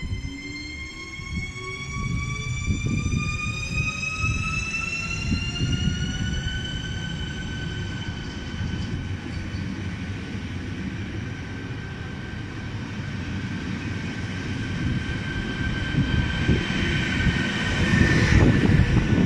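Škoda Vagonka 10Ev (ČD class 661 InterPanter) electric multiple unit pulling away from the platform. Its electric drive gives a whine of several notes that rises as it picks up speed and levels off about six seconds in. The rumble of wheels on the rails grows louder near the end as the cars pass close by.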